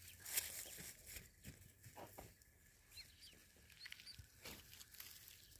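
Faint, short high-pitched peeps from a clutch of ducklings, a few scattered calls mostly in the second half, over soft crackling rustles in dry grass with one sharper crackle near the start.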